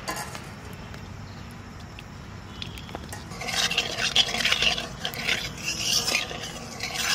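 Metal spatula scraping around the inside of a metal karahi (wok), spreading melted ghee over the pan for frying. The rasping strokes start about three seconds in and keep going in a run of uneven scrapes.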